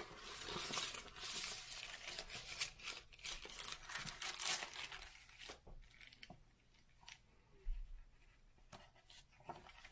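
Rustling and crinkling of a translucent paper sheet in a hardcover book as it is handled and turned over, loudest in the first five seconds, then a few soft taps.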